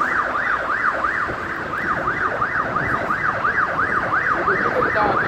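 Motorcycle anti-theft alarm sounding a police-siren-like yelp, a tone sweeping up and down about four times a second.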